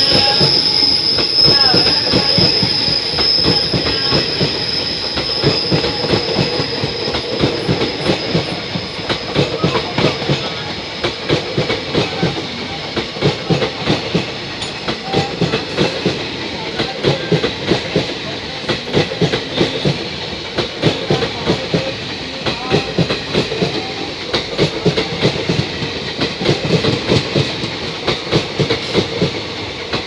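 Wheels of a passing Indian Railways express's passenger coaches running close alongside, clacking over the rail joints in repeated groups. A high wheel squeal at the start fades away over the first several seconds.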